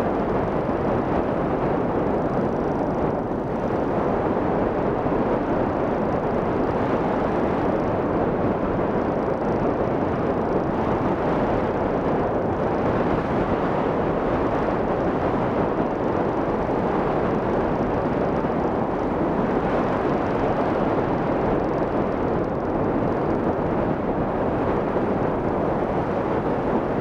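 Steady rush of wind over a camera microphone mounted on a hang glider in flight. The noise is loud and even throughout, with no breaks.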